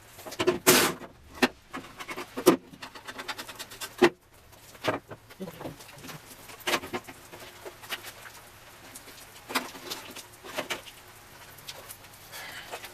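Irregular clinks, knocks and rattles of hand tools and metal car parts being worked on under the hood, with quieter handling noise between them.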